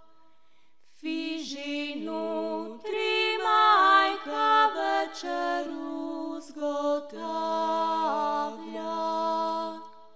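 Unaccompanied female voice singing a slow traditional Croatian folk melody, sliding up into its notes. It begins about a second in and stops just before the end.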